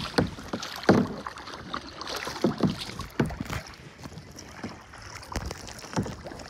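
Kayak paddle strokes: double-bladed paddle blades dipping into and splashing out of sea water, in short irregular splashes roughly a second apart.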